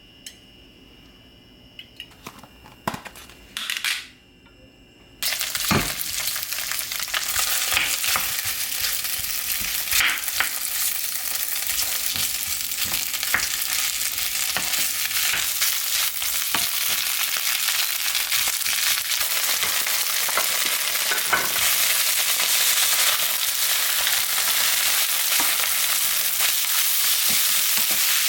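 Food frying in a hot pan: a few clicks at first, then about five seconds in the food goes into the pan and a loud sizzle starts suddenly. The sizzle carries on, with scattered clicks of a utensil stirring against the pan.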